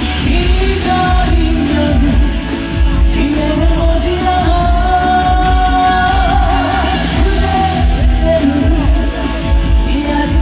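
Live singing with amplified band backing and a steady beat; the vocal line holds a long note with vibrato through the middle.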